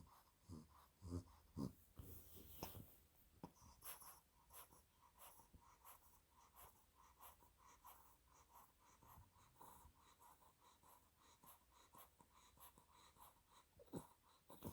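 A two-month-old Olde English Bulldog puppy snoring faintly in its sleep, with a run of short snorting breaths about two a second in the first couple of seconds and another near the end.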